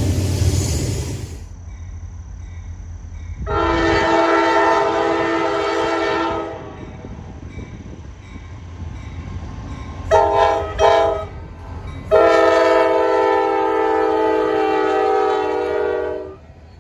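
Locomotive air horn sounding a chord of several steady notes: one long blast, two short toots, then another long blast. A low rumble from the train runs underneath. The rush of a passing train cuts off about a second in.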